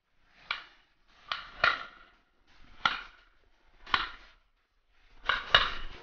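Shotgun shots, seven in about five seconds, some in quick pairs, each a sharp crack with a short echoing tail. The last pair is the loudest.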